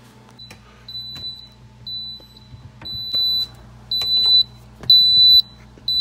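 Kenmore Elite refrigerator's door-alarm speaker beeping: short high-pitched beeps about once a second, each about half a second long, getting louder with each beep. The beeping will not stop because the door alarm is busted.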